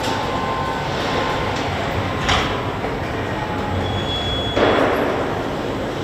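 Car assembly plant ambience: steady machinery noise, with a sharp clank a little over two seconds in and a short burst of hiss near the end.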